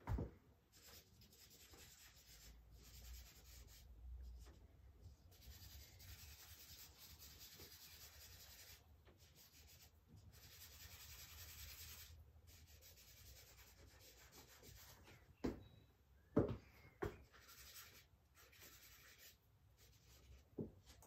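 Charcoal scratching and rubbing on drawing paper in long shading strokes, faint, coming in stretches of several seconds with brief pauses. A few sharp knocks come about three quarters of the way through.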